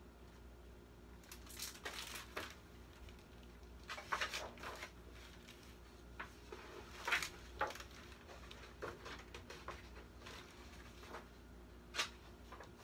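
A picture book's paper pages being handled and turned: scattered soft rustles and light taps, strongest around four and seven seconds in, with a sharp click near the end.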